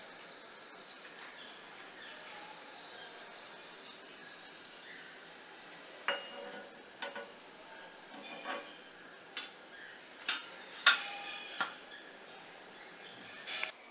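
Hot oil in a kadai sizzling faintly around a small test piece of bhatura dough, a check that the oil is hot enough to fry. From about six seconds in, a metal slotted spoon clinks sharply against the pan several times.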